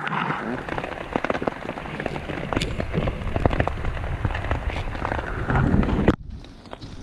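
Heavy rain pattering on a fly sheet, a dense run of sharp drop strikes over a steady hiss. It cuts off suddenly about six seconds in, leaving a quieter hiss.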